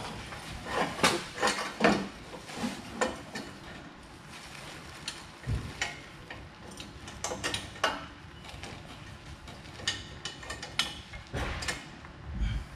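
Hand tools working fasteners on car hardware: irregular metallic clicks and clinks of a socket and wrench, with a couple of dull thumps.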